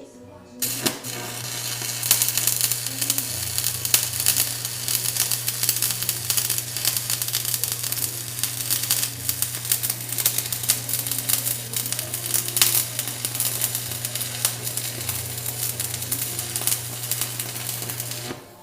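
Stick (arc) welding: the electrode arc crackles and sizzles steadily as a bead is laid along a ground groove in a leaking tractor hydraulic accumulator, over a steady low hum. The arc strikes about a second in and runs until it breaks off at the very end.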